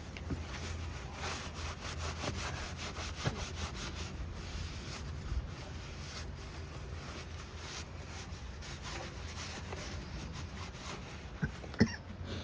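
Repeated, irregular rubbing or scraping strokes on a hard surface, with two sharp knocks near the end.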